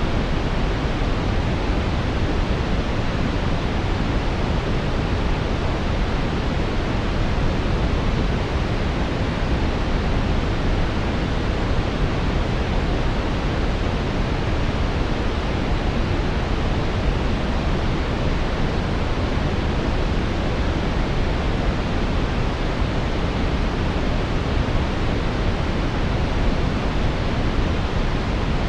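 Steady brown noise: an even, deep hiss of synthetic noise with most of its energy in the lows, unchanging throughout.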